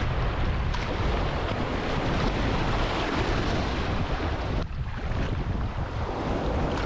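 Ocean surf washing in a steady rush, with wind buffeting the microphone in a heavy low rumble.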